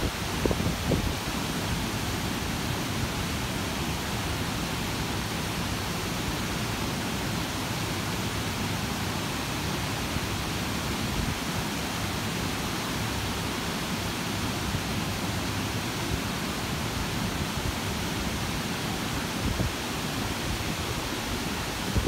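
Steady rushing hiss of water cascading down the terraced concrete steps of a large stepped fountain into its pool, with a few brief low bumps near the start.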